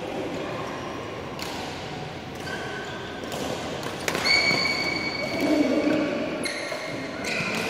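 Badminton rally: rackets striking the shuttlecock several times, with sneakers squeaking on the court mat, the loudest squeak held for nearly a second about four seconds in, in a large echoing hall.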